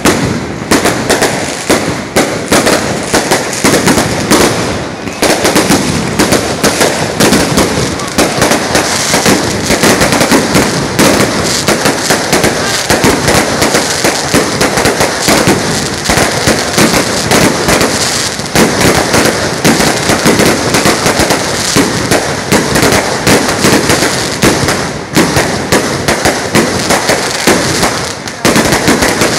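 Strings of firecrackers going off in a dense, continuous crackle of loud bangs, with a few brief lulls.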